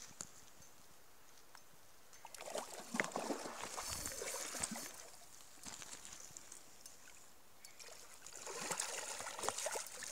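A hooked trout splashing in shallow water as it is reeled in to the bank, in two spells of splashing with quieter water between.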